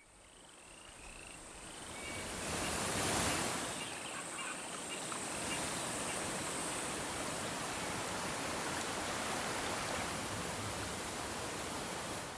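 A generated sound-effect texture from the Krotos Studio Genesys pack: a wide hiss of noise, like surf or wind. It fades in from silence, swells about three seconds in, then holds steady. A handful of short chirps sound over it in the first two seconds.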